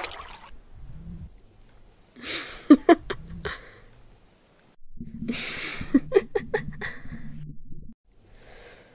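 A man's breathy, sighing vocal noises, no words: a short breath about two seconds in, then a longer run of sighing breaths from about five to eight seconds.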